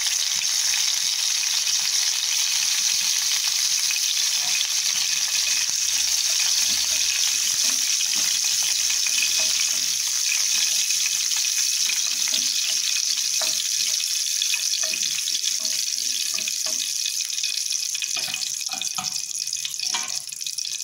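Curry leaves, mustard seeds and dried red chillies sizzling in hot oil in a pan, a steady frying hiss that eases slightly toward the end. Partway through they are stirred with a spatula.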